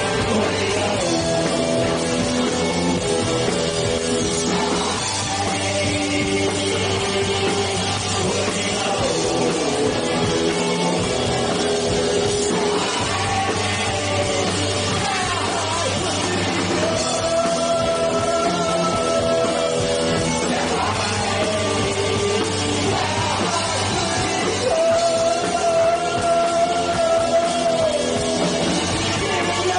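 Live rock band playing: a male singer over electric guitars, bass guitar and drum kit, picked up from beside a stage monitor. The singer holds two long notes in the second half.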